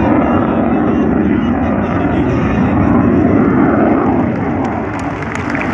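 Jet noise from the JF-17 Thunder fighter's single Klimov RD-93 turbofan during a low display pass, loud and continuous. It eases slightly and a scatter of sharp clicks begins near the end.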